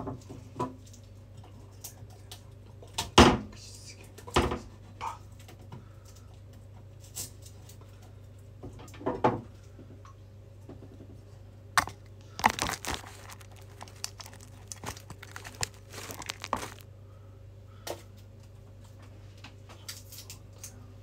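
Scattered kitchen handling sounds: rustling and crinkling with sharp knocks and clatters of utensils or cookware, the loudest knock about three seconds in, over a steady low hum.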